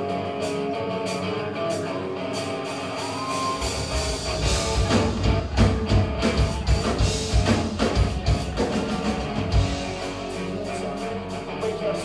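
Rock band playing live with electric guitars. About three and a half seconds in, a heavy low end with hard drum hits joins, and it drops back about ten seconds in.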